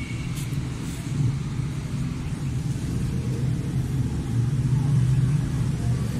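Steady low rumble that swells slightly around four to six seconds in, with two faint clicks near the start.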